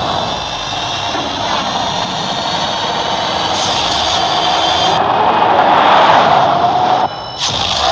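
Rimac Nevera electric hypercar driving at speed: a rushing sound of wind and tyres with a faint high motor whine that drifts in pitch. It swells to its loudest about six seconds in, drops off abruptly about a second later, then comes back loud near the end.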